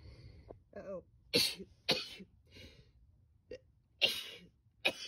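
A woman sneezing repeatedly, about four sharp sneezes in a row with small breathy sounds between them.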